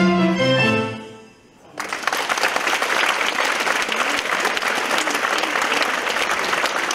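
An accordion orchestra holds the last chord of a tango, which fades out about a second and a half in. The audience then breaks into steady applause.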